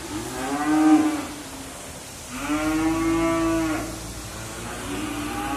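Charolais cattle mooing in a crowded pen: three long moos, a short one at the start, a longer one from about two and a half seconds in, and another starting near the end.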